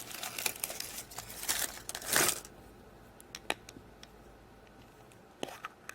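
Foil wrapper of a chocolate surprise egg crinkling and tearing as it is unwrapped, densest over the first two and a half seconds, followed by a few faint clicks.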